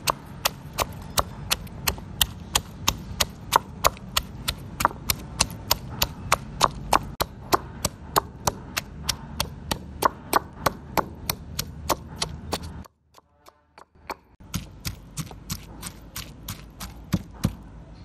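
Stone pestle pounding chilies and garlic in a stone mortar into a chili-garlic paste: steady sharp knocks, about three a second. The pounding breaks off for about a second and a half around 13 seconds in, then resumes.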